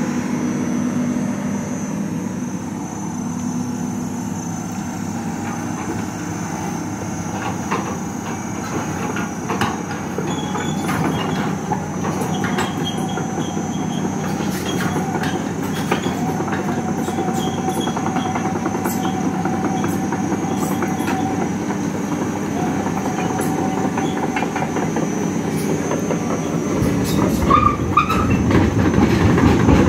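Komatsu crawler excavator travelling on its steel tracks: the diesel engine runs steadily under the clanking and squealing of the track links. It grows louder over the last few seconds as the machine reaches the trailer.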